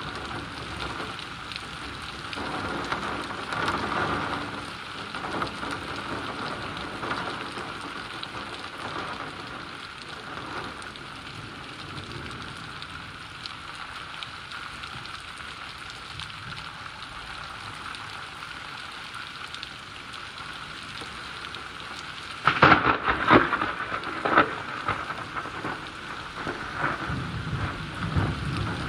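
Steady rain falling during a thunderstorm, with a loud burst of crackling thunder about three-quarters of the way through.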